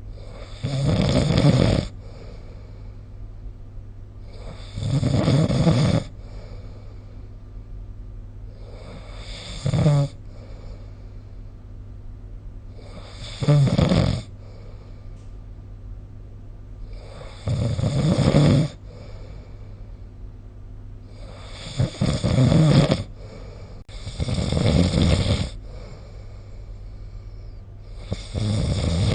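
A sleeping person snoring: eight snores, each about a second long, coming every three to four seconds, with a steady low hum between them.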